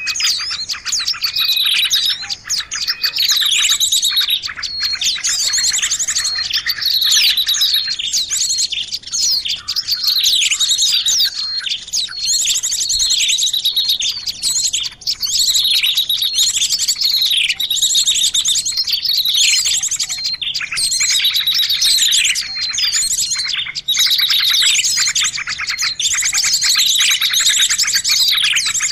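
Bird-lure recording combining the calls of many small songbirds, chirping and trilling over one another. High, fast twittering trills mix with short down-slurred chirps that repeat about once a second.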